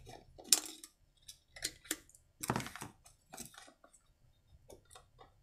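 Scattered light plastic clicks and knocks as a chainsaw's fuel tank cap is unscrewed and set down, with a couple of sharper knocks about half a second and two and a half seconds in.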